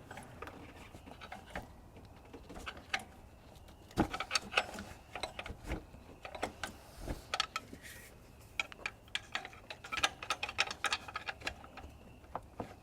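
Irregular metallic clicks and knocks as a pry bar works an alternator out of its mounting bracket. The clicks are sparse at first and come in denser clusters from about four seconds in.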